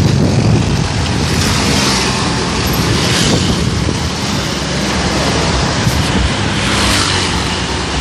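Steady engine and road noise of a moving bus.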